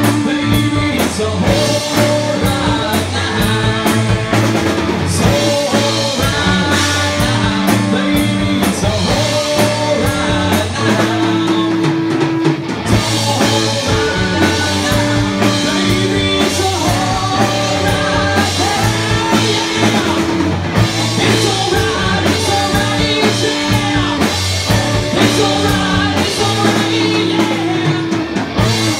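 Live rock band playing a song: electric guitars and a Yamaha drum kit, with a man singing lead vocals.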